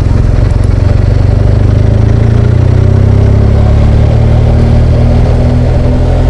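BMW R1200GS Adventure's boxer-twin engine running under way, its note rising slowly over a few seconds as the motorcycle gathers speed, over a steady rush of wind and road noise.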